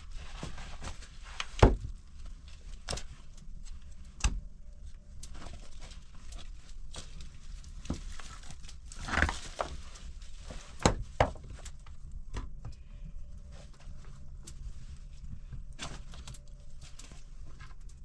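Rough stones being set down on other rocks: scattered knocks and scrapes of stone on stone, the loudest about a second and a half in, and two quick knocks close together about eleven seconds in, among footsteps and shuffling on dry dirt and gravel.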